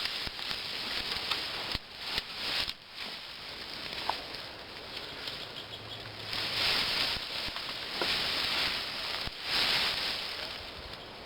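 Leaves and branches rustling with footsteps as someone pushes through willow brush, the noise swelling and easing several times, with a few faint sharp clicks.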